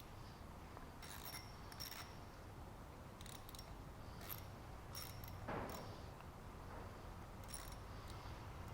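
Scattered light clinks and taps of small hard objects being handled, about eight in all, over a faint low hum.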